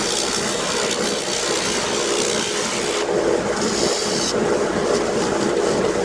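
Wood lathe running with a steady hum while a turning tool cuts the spinning spalted oak bowl, giving a shaving hiss. The hiss drops out about three seconds in, comes back briefly, then eases off.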